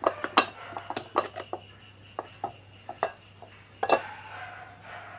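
Sharp metallic clicks and clinks of tools and metal fan parts being handled, about a dozen irregular knocks with the loudest near four seconds in.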